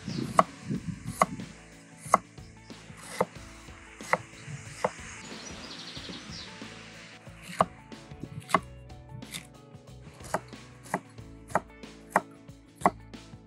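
Kitchen knife chopping food on a cutting board in separate, spaced strokes, roughly one every half-second to second, with a short pause midway.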